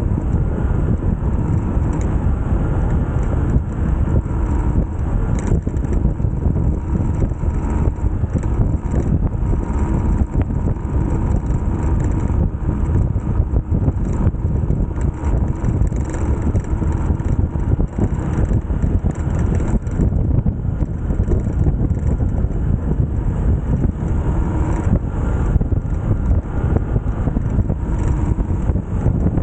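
A 150 cc-class motorcycle running steadily at riding speed, with heavy wind rush buffeting the microphone throughout.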